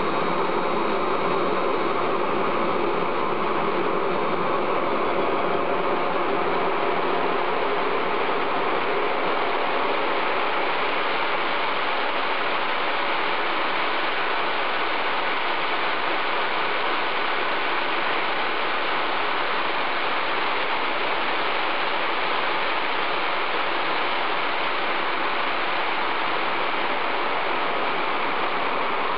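Armfield CM14 axial flow gas turbine running at a steady speed: an even rushing noise with a faint high whine.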